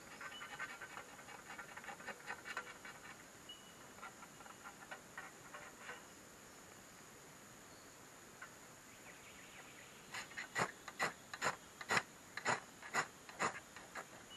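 Ferro rod scraped hard with a steel striker over a folding pocket stove's solid-fuel tablet, about ten quick sharp strokes throwing sparks to light it. Before that, a light crackly rustling as the tablet is handled, fading after a few seconds.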